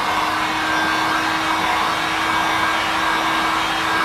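Handheld electric hot-air heater running steadily, a constant rush of blown air over a steady hum, force-drying fresh touch-up paint.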